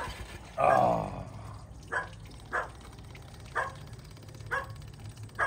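A dog barking in short, sharp barks roughly once a second, after a louder falling yelp about half a second in.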